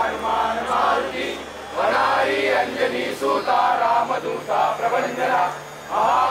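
A large group of men chanting a prayer together in unison, in phrases with short breaks for breath about two seconds in and near the end.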